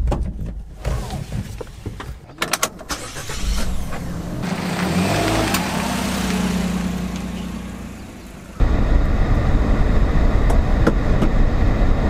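Small kei truck: a few sharp clicks, then its engine running as it pulls away, swelling and fading over about four seconds. A steady, loud rumble of driving noise then starts abruptly.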